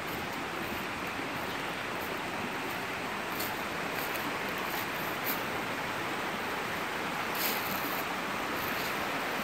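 Steady rushing of a stream's flowing water, with a few brief crunches of footsteps on stones and gravel.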